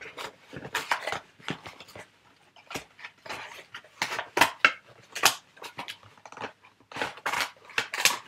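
Irregular clicks, knocks and clatter of hard plastic toy-blaster parts and packaging being handled.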